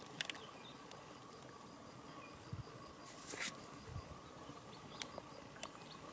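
Quiet outdoor ambience with an insect chirping a steady high note in rapid, regular pulses, and a few faint brief rustles, one about a third of a second in and another past the halfway mark.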